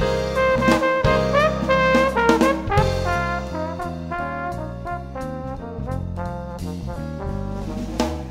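Background jazz music led by brass horns, with a few sliding notes and a changing bass line underneath.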